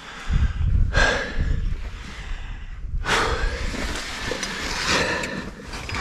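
A climber's heavy breathing as he works up a rock chimney: strong breaths about one, three and five seconds in, over a steady low rumble.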